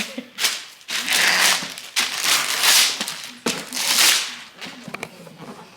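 Gift wrapping paper being torn and crumpled off a present, in several quick rips and rustles about a second apart.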